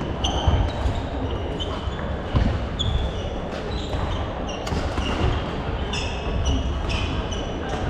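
Sports shoes squeaking on a sprung wooden sports-hall floor in many short, high chirps, mixed with sharp taps of badminton rackets hitting shuttlecocks, over the steady background noise of a busy hall.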